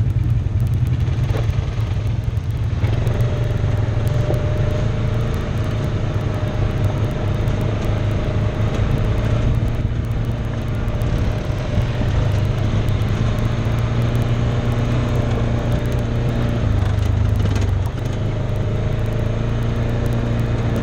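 Side-by-side off-road vehicle's engine running steadily under way on a dirt road, heard up close from the vehicle itself as a loud, even low drone. It eases slightly near the end.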